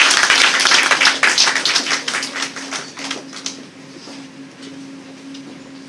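Audience applauding, the clapping dying away over about three seconds, with a steady low hum underneath.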